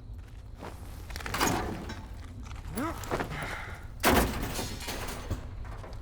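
Two loud crashing impacts, about a second and a half in and again about four seconds in, the second the louder: something being smashed. Between them comes a brief vocal sound that rises and falls.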